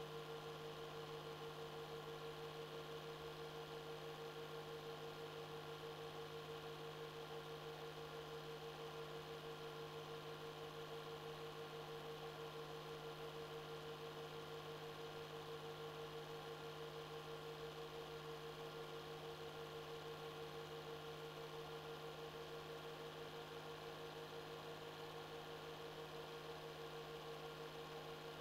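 Steady electrical hum and hiss with a constant mid-pitched tone, unchanging throughout: background noise of a silent 8mm film transfer, with no soundtrack of its own.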